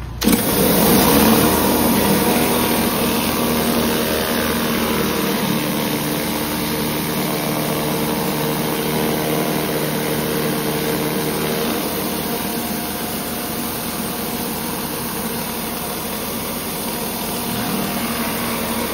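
Pressure washer spraying greasy, hydroxide-treated concrete: a high-pressure water jet hisses with the machine's engine-driven pump running steadily beneath. It starts abruptly at the beginning, and the hum under the spray gets weaker about two-thirds of the way through.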